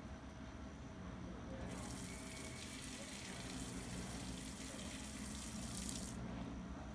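Water running from a tap in a steady hissing stream, turned on a couple of seconds in and shut off shortly before the end.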